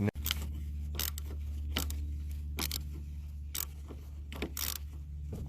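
Irregular sharp metal clicks and scrapes from a ratchet working on the battery cable terminal clamp as it is refitted and tightened. A steady low hum runs underneath.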